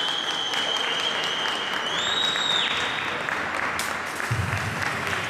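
Spectators applauding a figure skater at the end of her program. A long, high whistle sounds over the clapping and stops a little under three seconds in.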